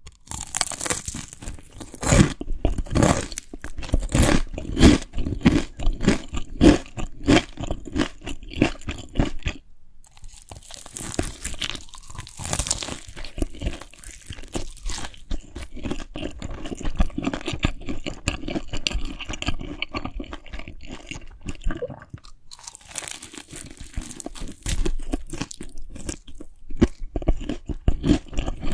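A person chewing crunchy food: rapid crisp crunches from biting and chewing, with two brief lulls, about ten seconds in and again a little past twenty.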